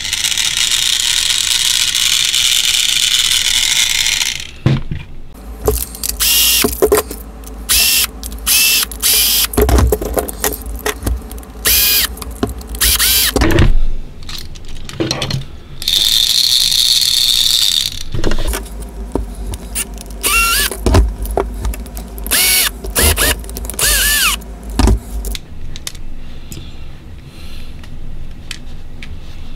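Small electric motor of a Hiro Trackmaster toy engine running with a loud steady whirring for about four seconds, noisy from a broken gear. It is followed by many short whirring bursts from a small electric motor, some rising in pitch as they spin up, with another steady run midway and clicks and knocks from handling the plastic gearbox.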